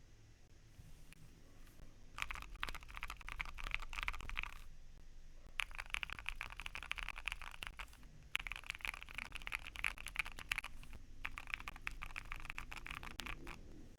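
Fast typing on a Keychron Q1 mechanical keyboard with lubed Durrock T1 Dark Amber switches and a masking-tape-dampened bottom case. The keys clatter in four dense bursts with short pauses between them, starting about two seconds in.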